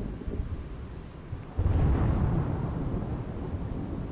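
Thunder rumbling over steady rain, with a louder roll of thunder starting about a second and a half in.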